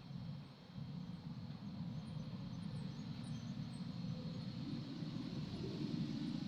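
A steady low rumble of outdoor background noise, with a few faint high chirps about three seconds in.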